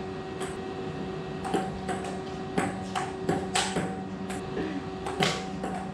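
Celluloid-style table tennis ball clicking off paddles and the table in rallies: sharp single knocks at irregular spacing, over a steady hum.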